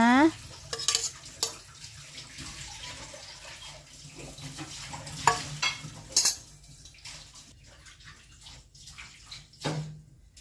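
Kitchen utensils clinking and scraping: a metal spoon against a steel bowl and a china plate, then a plastic spatula in a stone mortar. A handful of sharp clinks come spread out, with quieter handling in between.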